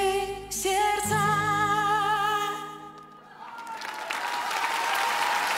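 A woman's voice holds the song's last sung note with vibrato over the accompaniment, fading out about two and a half seconds in. The audience then breaks into applause.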